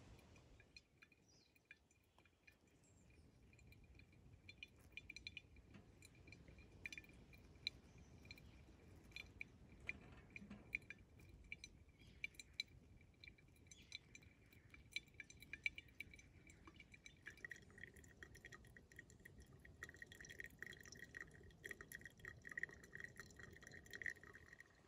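Coffee dripping through a paper-filter pour-over dripper into a glass server: a quick run of faint drips and small glassy plinks, with a thin stream of hot water poured onto the grounds.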